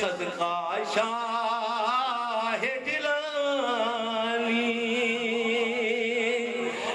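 A man's voice chanting unaccompanied into a microphone, in a devotional sung recitation. The held notes waver; after a short breath about a third of the way in, he holds one long wavering note.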